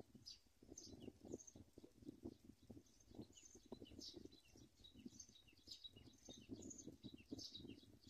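Faint, high-pitched chirping from black-winged kite nestlings in the nest: many short calls, repeated over a low rustling noise.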